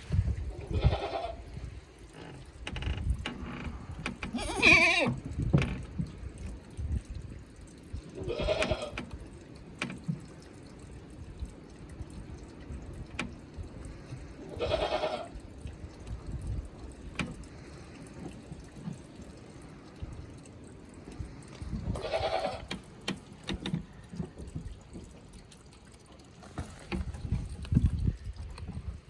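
Two-week-old kid goats bleating, about five separate short calls spread out, with rustling and low knocks underneath.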